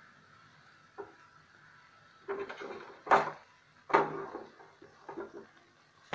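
Wooden spatula knocking and scraping against a steel pan: one small click about a second in, then a cluster of knocks and scrapes in the second half, two of them loud.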